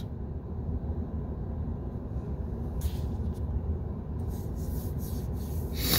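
Steady low rumble of a car heard from inside the cabin, with a few short soft hisses about halfway through and near the end.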